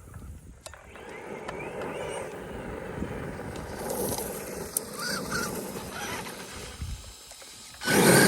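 Traxxas E-Revo electric RC monster truck driving on gravel, its electric motor whining up and down in pitch over the crunch of the tyres, with a sudden much louder burst near the end as it speeds up.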